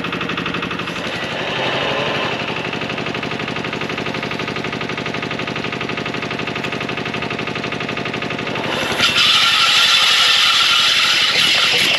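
1946 Cooper TB two-horsepower hit-and-miss stationary engine being spun over by a belt-driven 240-volt electric motor: a steady, fast-repeating mechanical hum as the engine is turned over. About nine seconds in it turns louder and harsher as the engine starts firing.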